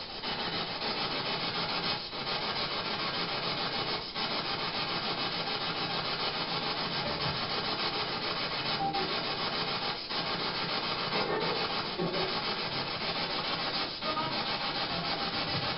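A steady, fairly loud hiss, broken by short dips about every two seconds, with a few faint brief tones in it.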